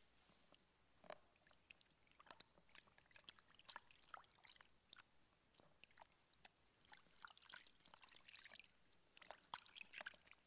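Faint splashing and trickling of water in a plastic basin as hands wash a person's feet: scattered small splashes and drips, busiest about seven seconds in and again near the end.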